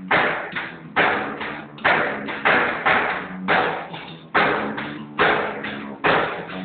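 Drum kit played with an electric bass guitar: loud drum-and-cymbal hits about once a second with lighter strokes between them, while the bass holds low notes underneath.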